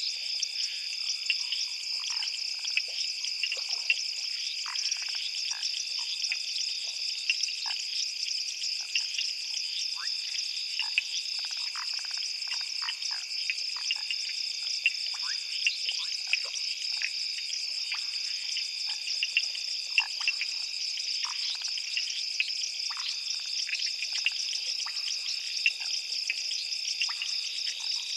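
Dense night chorus of frogs and insects at a waterhole: a steady high-pitched trilling with many short clicking calls scattered irregularly through it.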